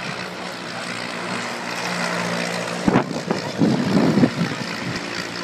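Propeller-driven piston engines of aerobatic biplanes flying overhead, a steady drone. About three seconds in, a few irregular low thumps and rumbles come up over it, louder than the drone, for about a second and a half.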